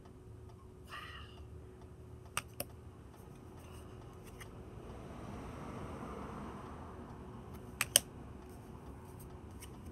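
Quiet handling of a deck of tarot cards: light clicks and taps as cards are moved, with two sharp clicks close together near the end, over a faint low hum.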